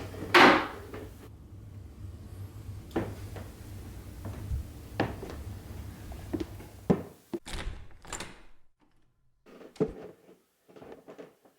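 A loud rustle at the start, then scattered knocks and thuds of a door and someone moving about a room, with another rustle around eight seconds in; after that it goes almost quiet.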